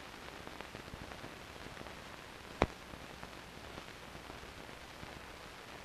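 Steady hiss with faint crackle from an old 16mm film soundtrack, with one sharp click about two and a half seconds in.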